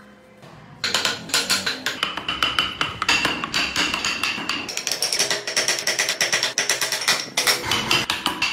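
Background music with a fast tapping rhythm, starting about a second in.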